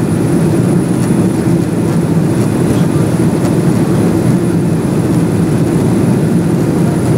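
Steady cabin noise of a jet airliner in the climb after take-off: an even, loud rush of engine and airflow noise.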